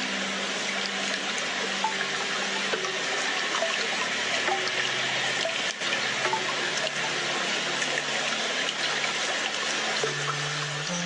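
Waterfall: a steady rush of falling water. Soft held notes of background music change pitch underneath.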